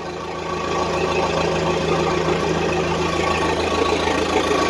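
Case 480 backhoe engine running steadily at idle, restarted after its corroded battery terminals were cleaned.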